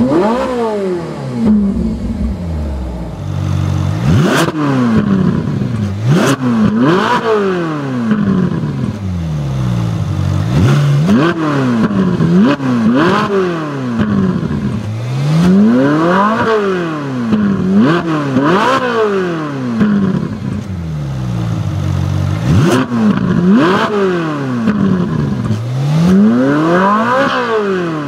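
Ferrari 458 Spider's 4.5-litre flat-plane-crank V8 revved repeatedly in park: about a dozen quick blips, each climbing sharply and dropping back to idle, some set off with a sharp crack.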